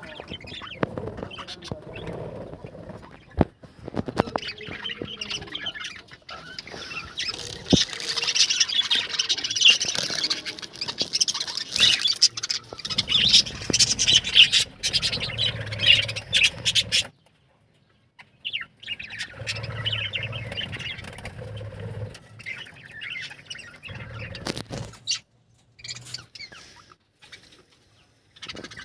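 Budgerigars chattering and warbling in a busy stream of chirps and squawks, with a few sharp clicks. The chatter breaks off abruptly twice.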